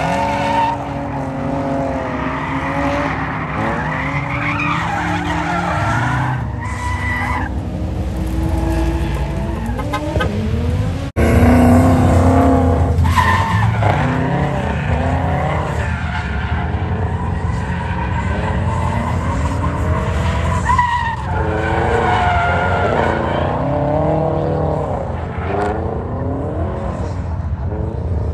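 Drift cars sliding sideways: engines revving up and down over continuous tire squeal. The sound breaks off for an instant about eleven seconds in and comes back louder.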